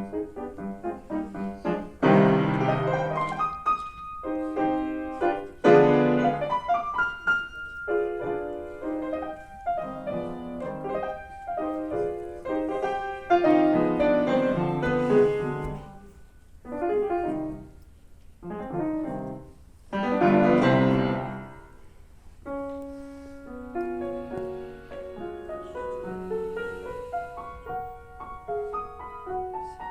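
Solo piano playing a classical piece: forceful loud chords strike about 2, 6, 13 and 20 seconds in between quicker runs of notes, and the playing turns softer over the last several seconds.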